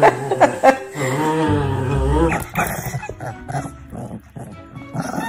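A dog vocalising: a few short sharp yips, then a long wavering whine lasting about a second, followed by quieter scattered sounds.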